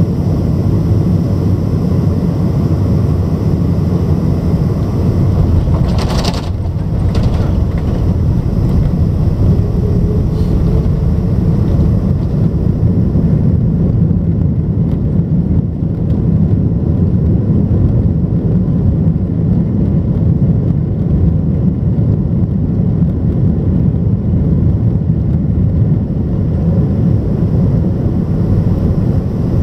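Boeing 747 cabin noise while taxiing: a steady low rumble of the engines and the rolling aircraft. Two brief sharp sounds come about six and seven seconds in. The higher part of the noise dies away after about thirteen seconds.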